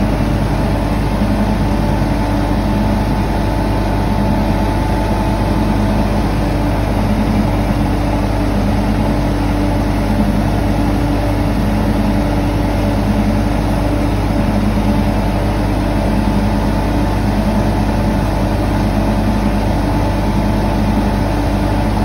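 Skid steer engine running steadily, driving a hydraulic cement mixer attachment that is churning cob (wet clay and straw).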